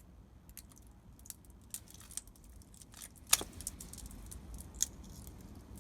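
Small clicks and taps of a cutting tool working on a lipo battery pack as paired cells are being cut off, the sharpest click about three and a half seconds in and another near five seconds.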